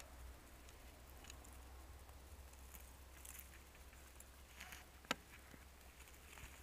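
Near silence with faint rustling of dry grass and brush, and a single sharp click about five seconds in.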